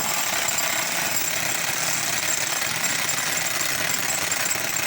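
Jackhammer breaking concrete, a fast, steady rattle that continues without a break.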